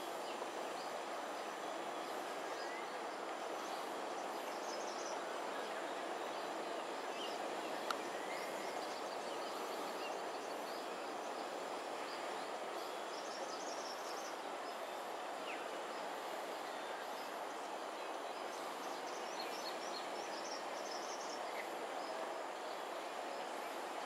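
Steady outdoor background noise with no clear single source, with faint high chirps now and then and one sharp click about eight seconds in.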